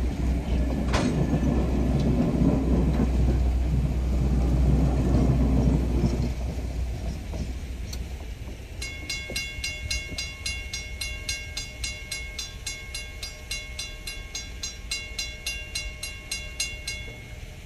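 Wooden-bodied passenger coaches rolling past with a low rumble that fades away about six seconds in. From about nine seconds in, a grade-crossing warning bell rings steadily at about three strokes a second as the crossing clears.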